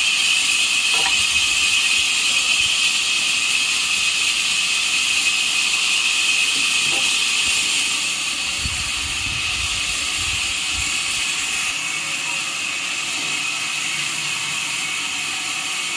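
A steady high-pitched hiss, with low rumbles and knocks about halfway through as a heavy log is rolled over the ground by hand.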